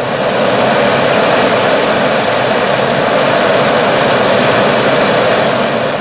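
Saab 9-3's new replacement HVAC blower fan motor running at speed: a loud, steady rush of air from the spinning blower wheel, starting to spin down near the end. It runs without any squeal, a sign that the new motor is healthy.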